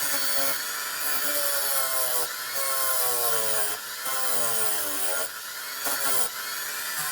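Handheld Dremel rotary tool running against the work, with a loud hiss of abrasion. Its whine sags in pitch again and again, about once a second, as it is pressed into the part and eased off.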